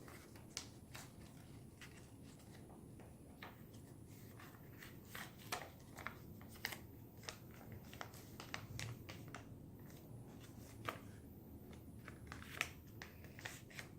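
A sheet of paper being folded and creased by hand: faint, irregular crinkles and rustles.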